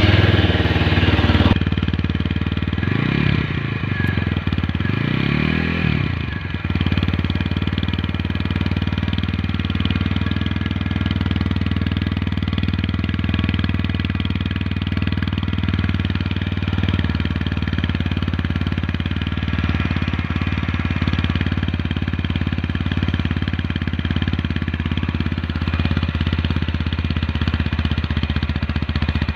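TVS Apache RTR 160 4V BS6's single-cylinder engine running through its twin-outlet (double-barrel) exhaust just after start-up. It is blipped twice, rising and falling in pitch about three and five seconds in, then settles into a steady idle with a deep bass note.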